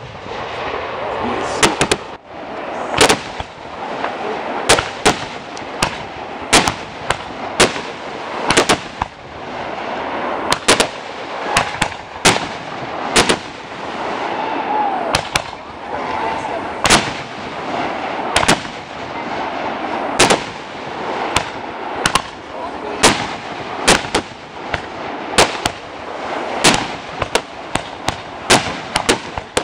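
Aerial firework shells bursting one after another: an irregular string of sharp bangs, roughly one to two a second, over a continuous background din.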